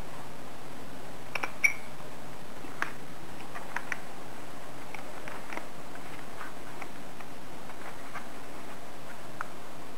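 Scattered small clicks and crackles of folded paper as hands handle and turn a paper kusudama ball, over a steady hiss. The sharpest pair of clicks comes about a second and a half in, with fainter ticks later.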